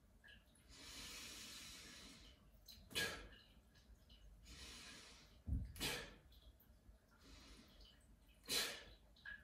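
A person breathing in a steady qigong rhythm: a longer, softer breath followed by a short, sharp one, three times at about three-second intervals.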